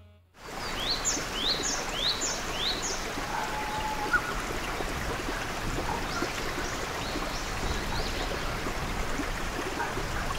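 Running water from a stream with birds calling over it: one bird repeats a short high call about five times in quick succession in the first few seconds, and fainter calls follow later.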